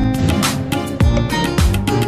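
Instrumental background music with a steady beat and pitched melodic notes, playing under a quiz countdown.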